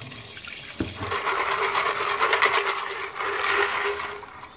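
Kitchen faucet spraying water into a plastic jug of raw peanuts to rinse them: a steady hiss of running water with a steady low hum under it. It starts with a short knock about a second in and stops shortly before the end.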